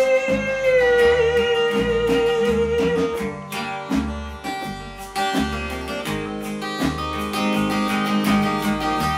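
Acoustic guitar strummed in an instrumental passage of a live band song, over a regular low bass pulse. A long held note carries over from the start and dies away about three seconds in.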